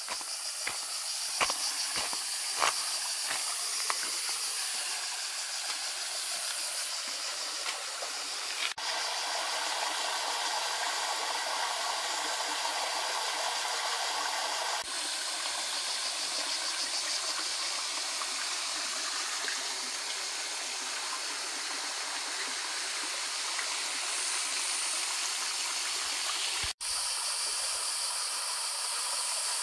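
Small mountain waterfall spilling over red porphyry rock into a natural rock pool: a steady rush of falling, splashing water. A few sharp ticks in the first few seconds, and the sound breaks off abruptly for an instant about 9, 15 and 27 seconds in.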